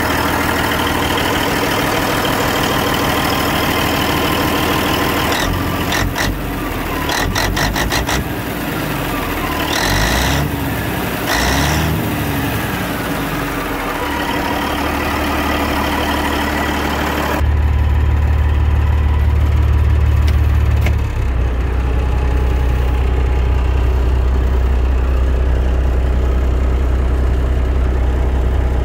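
CAT 3406B six-cylinder diesel idling steadily, freshly fitted with a new exhaust manifold and running with no leaks. About two-thirds of the way through the sound turns deeper and duller, heard from inside the truck's cab.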